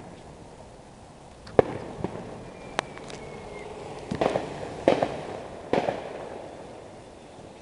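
Fireworks going off nearby: a string of sharp bangs, the loudest about a second and a half in, then rapid crackling bursts in three clusters about four to six seconds in, with a faint high whistle between them.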